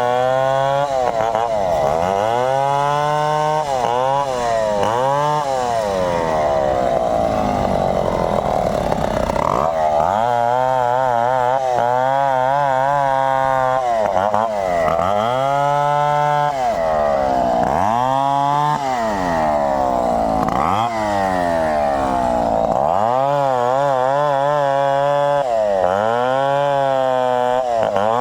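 Two-stroke chainsaw running hard, its engine speed repeatedly dropping and climbing back every second or two as it is throttled and loaded in the cut.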